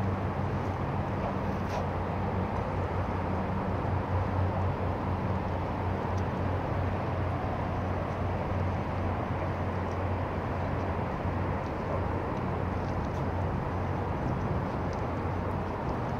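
Outdoor city ambience of distant traffic: a steady wash of noise with a low engine hum that fades away about two-thirds of the way through.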